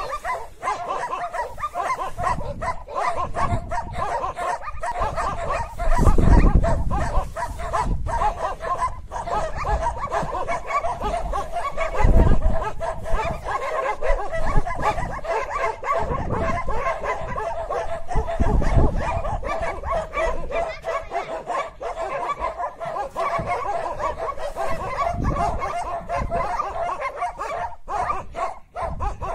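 Several dogs barking and yelping over one another without pause, a pack barking at a Himalayan lynx that has come among them. Three brief low rumbles on the microphone stand out about six, twelve and eighteen seconds in.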